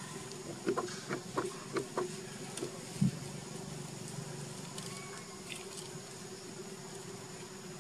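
Leaves and thin twigs snapping and rustling as a young macaque grips and pulls at branches: a run of short sharp clicks in the first two seconds and a heavier thump about three seconds in. Insects drone steadily underneath.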